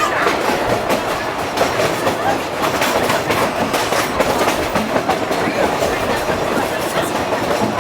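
Passenger coach of the Huckleberry Railroad's narrow-gauge train rolling along, a steady rumble with wheels clicking and clacking over the rail joints.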